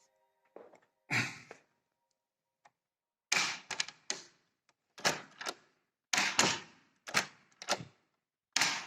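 A series of irregular knocks and thuds, some single and some in quick clusters of two to four, with dead silence between them.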